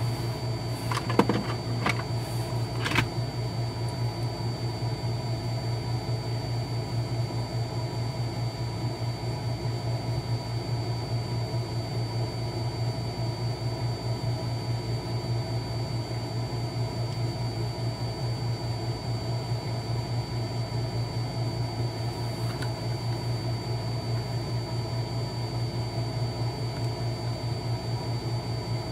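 A steady machine hum with a thin high whine over it, and a few small clicks and knocks in the first three seconds.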